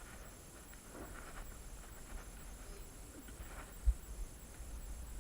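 Scattered footsteps, scuffs and knocks of someone climbing about on an old, flimsy tower floor, over a low rumble, with one dull thump about four seconds in.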